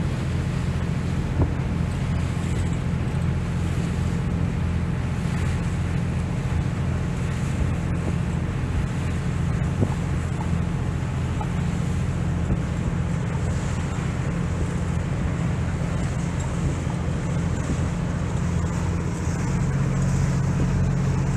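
Long-tail boat's engine running steadily under way, heard from on board, with wind and water rushing past. The engine grows a little louder near the end.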